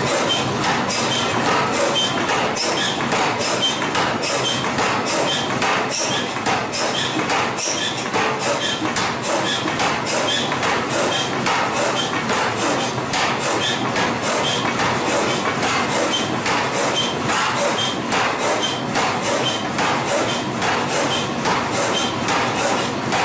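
Forging-shop machinery clattering steadily, with many sharp metallic clicks and a short high squeak that repeats regularly, a little more than once a second.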